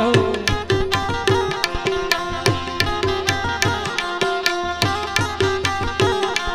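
Instrumental interlude of a Gujarati devotional bhajan: Indian hand drums keep a steady, brisk rhythm, their deep bass strokes sliding down in pitch, under sustained melody notes and quick bright strokes. There is no singing.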